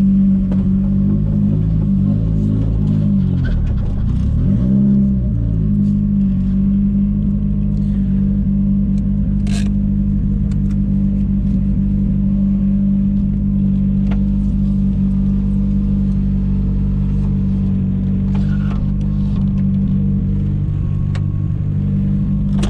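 Nissan S14 drift car's engine running steadily, its pitch dipping and rising again a few seconds in. The engine is running hotter than it should, a cooling problem the owner puts down to a thermostat that won't open.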